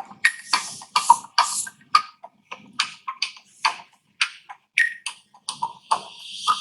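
Percussive music played through a 4x15 loudspeaker box: a quick run of sharp hits and hissy, clap-like bursts, about two to three a second, with little deep bass coming through.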